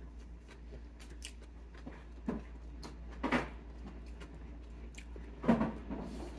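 Scattered light clicks and a few short clatters of kitchen activity over a steady low hum.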